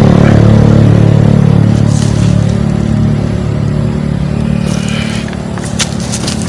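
An engine running steadily: a low hum that slowly gets a little quieter. A few light clicks come near the end.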